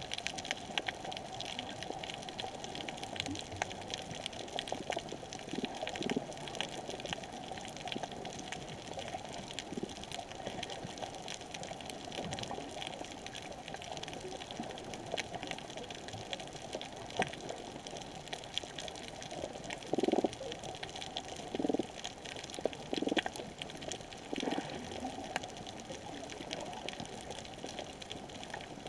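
Underwater reef ambience: a steady watery hiss filled with fine crackling clicks, the typical crackle of snapping shrimp on a coral reef. Four short low thuds come between about 20 and 25 seconds in.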